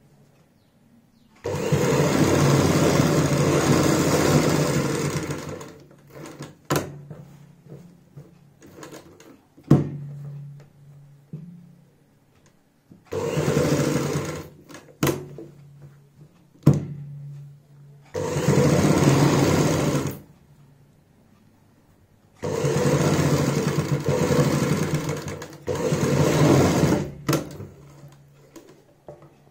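Sewing machine stitching through layered fabric in four runs of a few seconds each, starting and stopping abruptly. Between the runs there is a faint low hum and a few sharp clicks.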